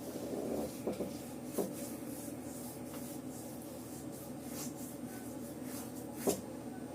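Computer keyboard keys being tapped sporadically, scattered clicks about two a second with a few louder strikes, over a steady low hum.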